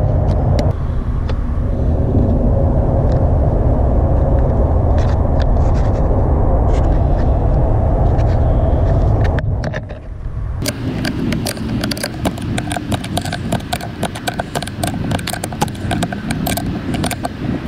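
A steady low rumble, then a wrench working a battery terminal nut down over a ring terminal: a fast, irregular run of small metal clicks and scrapes.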